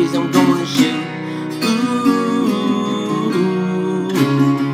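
Acoustic twelve-string guitar strummed in steady chords, with a man's voice singing the chorus over it.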